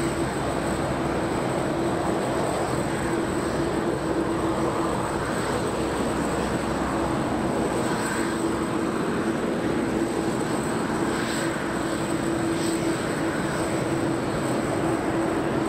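Steady jet aircraft noise: a continuous roar carrying a steady hum and a thin, high whine.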